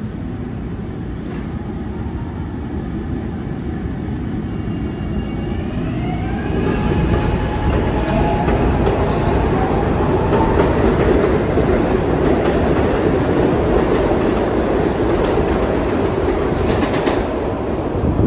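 SEPTA Market-Frankford Line subway train (M-4 cars) pulling out of the station. The whine of its traction motors rises in pitch as it picks up speed over the first ten seconds or so, while the wheels on the rails grow louder, with a few sharp clicks over rail joints as the cars pass.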